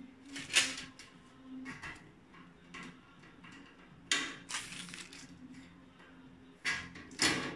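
Galvanized sheet-steel parts of an IKEA Hyllis shelf unit being handled during assembly: scattered metal clanks and knocks, the sharpest about half a second in, a longer scrape around four seconds in, and two more knocks near the end.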